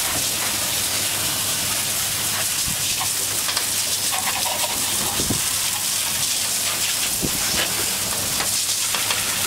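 Boat's coiled washdown hose spraying water onto the deck: a steady hiss of spray hitting the deck, with a steady low hum underneath.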